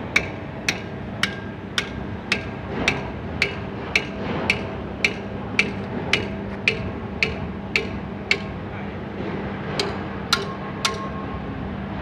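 Hammer blows on the steel of a bulldozer sprocket being knocked loose for removal, about two a second and evenly paced, each with a brief metallic ring. After a short pause about eight seconds in come three more blows, the last leaving a longer ring. A low steady hum runs underneath.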